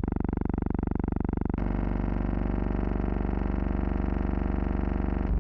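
A steady buzzing hum with many overtones. It shifts abruptly to a lower, fuller tone about a second and a half in, and changes again just before the end.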